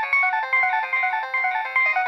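A Nokia 7250i mobile phone playing one of its polyphonic ringtones: a quick melody of short synthesized notes in several parts over a regular beat.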